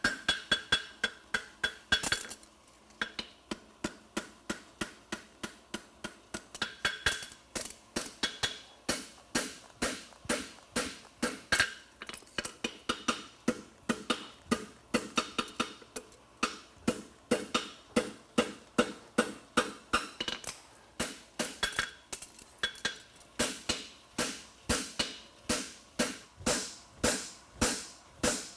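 Farrier's hammer striking a steel French hind horseshoe on an anvil while forging and shaping its branch. The blows come at about two a second, each with a metallic ring. There is a short break about two seconds in, then steady hammering resumes.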